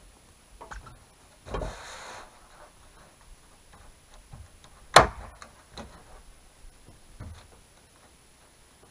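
Scattered knocks, taps and scrapes from hand work on a small wooden shack's roof, with a rustling scrape about a second and a half in and one sharp, loud bang about five seconds in.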